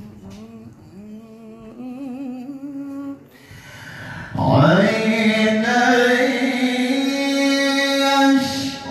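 A male voice reciting the Quran in the melodic mujawwad style through a handheld microphone. It begins softer, with a wavering pitch, then about four and a half seconds in rises into one loud long held note that ends just before the close.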